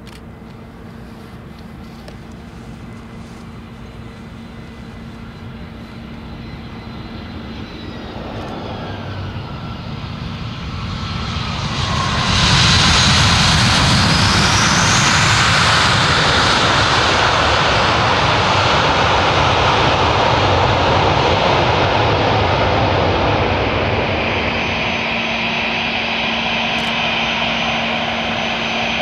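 Airbus A319 jet on approach and landing: the engine whine grows louder and drops in pitch as the aircraft passes. About twelve seconds in comes a sudden loud rush of reverse thrust as it rolls out on the runway, easing near the end to a steadier engine whine.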